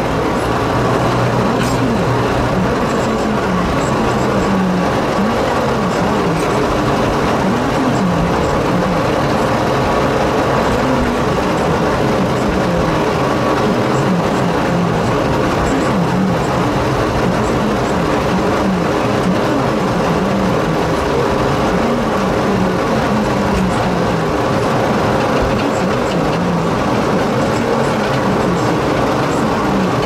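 Onboard sound of a narrow-gauge forest railway train on the move, a locomotive hauling passenger cars: steady running noise of the wheels on the rails and the engine, with a low note that wavers up and down.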